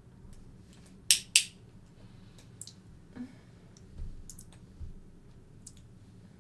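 Kissing: a few short, wet lip smacks, the two loudest close together about a second in, with softer ones later.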